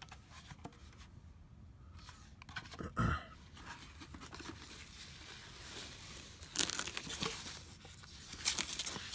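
Rustling and crinkling of a white foam wrap sheet and a cardboard box being handled while unpacking, with one thump about three seconds in and louder rustles in the second half.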